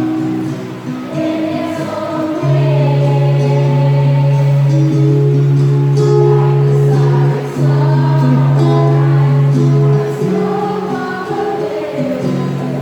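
Choir singing a hymn with instrumental accompaniment: long held notes over a steady low bass line.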